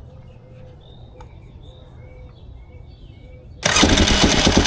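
2001 Yamaha Grizzly 600 ATV's single-cylinder four-stroke engine catching and starting suddenly near the end, then running with rapid even pulses, on its first start after a fresh oil change.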